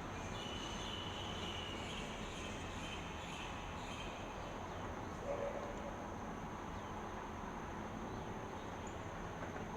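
Steady outdoor background hiss with a few short bird chirps in the first four seconds and a continuous high insect drone, like crickets. A brief low sound stands out about five seconds in.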